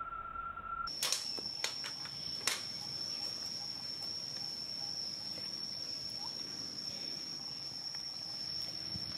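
A steady mid-pitched tone cuts off about a second in and gives way to a steady, high-pitched insect drone, with a few sharp clicks in the following second or two.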